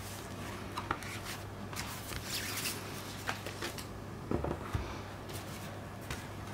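Gloved hands handling a Blu-ray case and its thin cardboard artwork insert: scattered rustles and scrapes of card sliding and being unfolded, with a couple of soft knocks a little past the middle, over a steady low hum.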